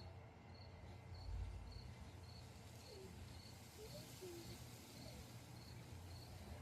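A cricket chirping faintly and steadily, about two short high chirps a second, over a low hum, with a few faint brief squeaks.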